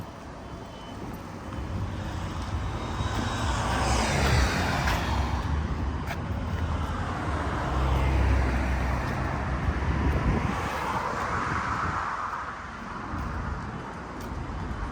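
City street traffic: cars driving past, the sound swelling as one passes about a third of the way in and again as another passes about two-thirds in, over a steady low engine rumble.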